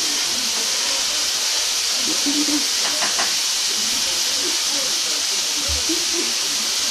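Steady high-pitched hiss of background noise, unchanging throughout, with a few faint small sounds beneath it.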